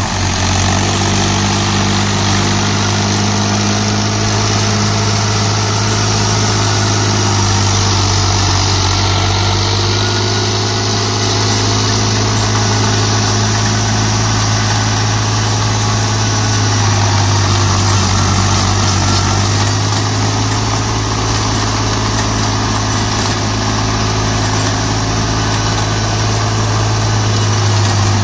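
Diesel tractor engine running steadily under load as it drives a Shaktiman rotary tiller (rotavator) through the soil. The hum is low and even, with small shifts in engine pitch.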